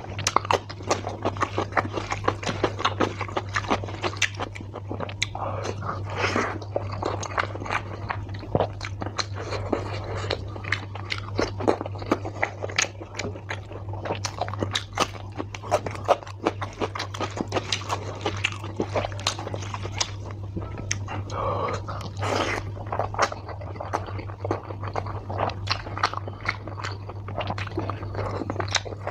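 Close-up chewing and biting sounds of a person eating chicken liver curry and rice with the hands, a dense run of short wet clicks and smacks, over a steady low hum.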